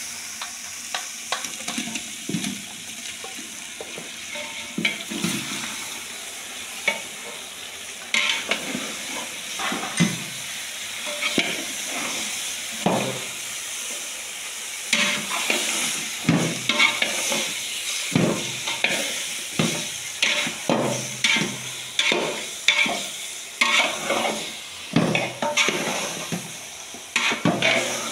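Chicken pieces and masala sizzling in a large metal pot while a metal spoon stirs them, scraping and knocking against the pot's sides. The stirring grows brisker about halfway through, with a knock roughly every second.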